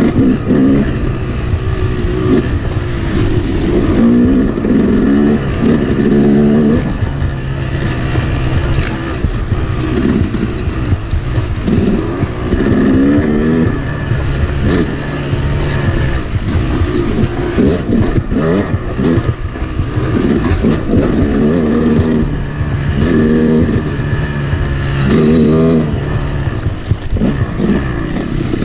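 Yamaha YZ250X two-stroke dirt bike engine revving up and backing off over and over, its pitch climbing with each burst of throttle.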